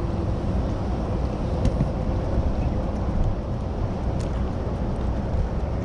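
Steady low rumbling noise of wind and water around a fishing boat, with a couple of faint light clicks.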